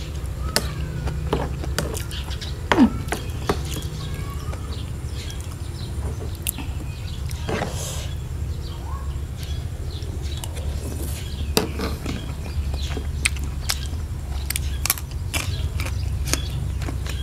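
Close-up eating sounds: chewing and mouth smacks with many short sharp clicks, over a steady low rumble.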